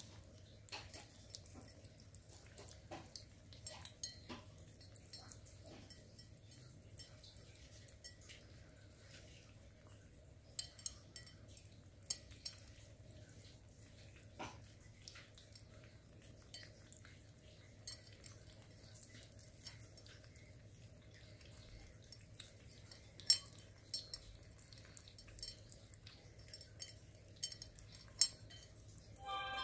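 Bengal kittens eating raw ground chicken from metal bowls: faint, irregular wet clicking and smacking of chewing and licking, with now and then a sharper tick as teeth or tongues knock against the bowls.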